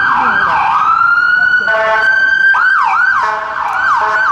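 Emergency vehicle siren going by: a fast, rapidly repeating up-and-down yelp, switching about a second in to one long rising wail, with blasts of a steady horn around two seconds and again near the end.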